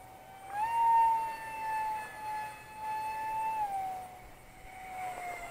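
Eachine F18's 50 mm electric ducted fan whining in flight. Its steady high tone rises in pitch and loudness about half a second in, holds, then drops back about four seconds in.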